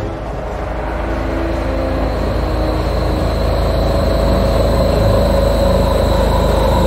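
Spaceship engine sound effect: a steady rumble with a thin high whine, slowly getting louder.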